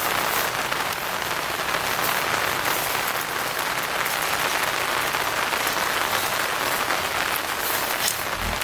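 Heavy rain drumming steadily on tent fabric, a dense even patter, with a brief low thud near the end.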